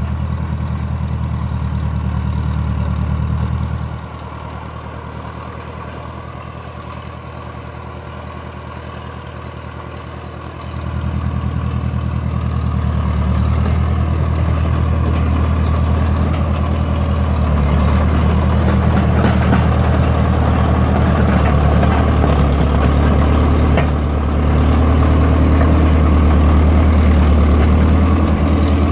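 International Harvester TD-9 crawler dozer's diesel engine running steadily as the machine travels. It drops lower about four seconds in, comes back up around eleven seconds, and grows louder as the dozer comes closer.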